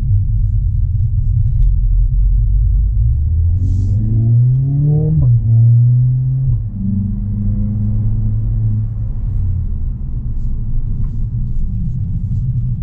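Mercedes-AMG A45 S's turbocharged four-cylinder engine and road noise heard inside the cabin as a steady low rumble. About four seconds in, the engine note climbs in pitch under acceleration, drops abruptly with a gear change, then settles back to a steady cruise.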